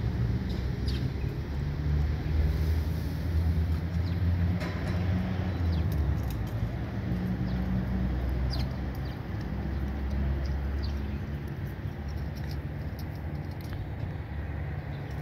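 Steady low rumble of road traffic going by, easing off slightly toward the end, with faint short high chirps now and then.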